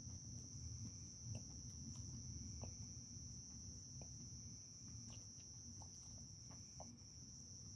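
Faint, steady high-pitched insect chorus, like crickets. Scattered soft ticks and crinkles come from a raccoon feeding with its head in a paper bag.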